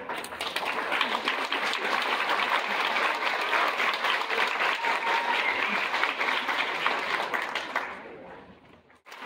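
Audience applause: many people clapping steadily, dying away near the end.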